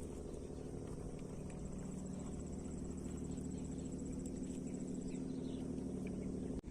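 An insect's high, rapidly pulsing trill, from about one and a half seconds in until about five seconds, over a steady low hum. The hum cuts off suddenly near the end.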